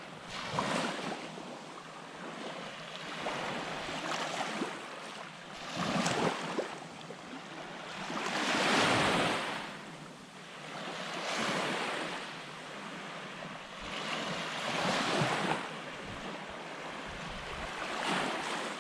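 Small waves breaking and washing up on a sandy beach, the surf swelling and fading every few seconds, loudest about halfway through.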